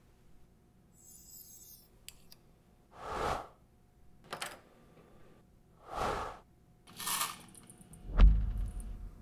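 A person hiccupping: short, sharp hiccups about three seconds apart, three in all. A heavy, low thump comes near the end.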